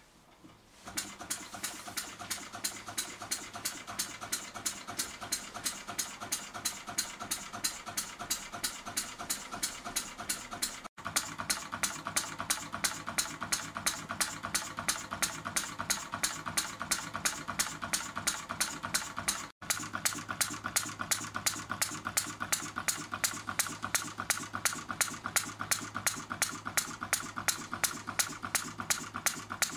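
A 12 cm single-cylinder four-stroke model diesel engine running at a steady speed. It starts about a second in and keeps up a fast, even beat of firing pulses and valve-gear clicks. The sound drops out for an instant twice.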